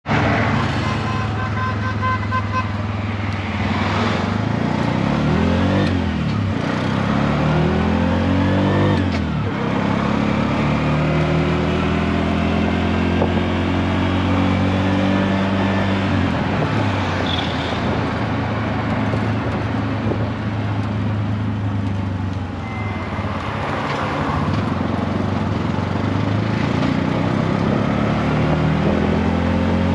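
Auto rickshaw (keke) with a small single-cylinder engine, heard from inside the cab while riding. The engine note climbs as it pulls away and drops back several times, over steady road and wind rush.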